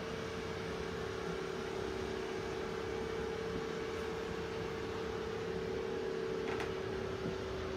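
A travel trailer's ventilation blower running steadily, with a constant hum over an even whooshing hiss. There is a faint click about six and a half seconds in.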